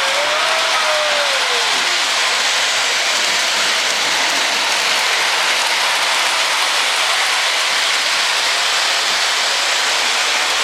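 Model train running along its shelf track: a steady, even hiss of rolling wheels on the rails.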